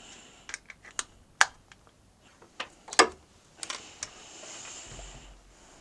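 Handling a Zoom F3 recorder as its battery slot is put back in: a scattered run of small, sharp plastic clicks and taps, the loudest about a second and a half and three seconds in, then a brief soft rustle about four seconds in.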